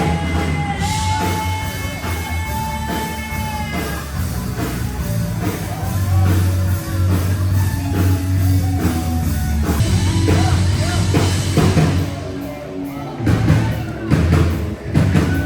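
Rock music with singing, guitar and drum kit.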